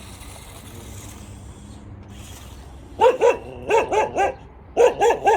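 A dog barking, about eight sharp barks in three quick groups of two or three, starting about three seconds in.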